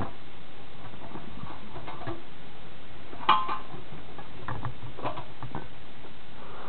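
Light metallic taps and scrapes from handling the rusty spring-loaded steel hopper lid of a wood-gas reactor, with one clank that rings briefly about three seconds in, over a steady background hiss.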